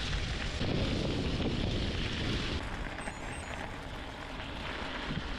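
Wind rushing over the microphone of a gravel bike being ridden, over the rolling noise of the bike on the road. The higher hiss thins out about halfway through.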